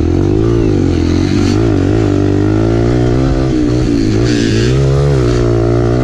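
Kawasaki KLX 140L dirt bike's single-cylinder four-stroke engine riding off-road, its pitch rising and falling again and again as the throttle is opened and closed.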